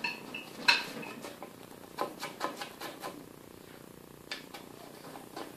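Hand-cleaning a cast-iron lathe bed: scrubbing and scraping with a rag and small tool, with a sharp clink about a second in and a run of lighter taps and scrapes in the middle.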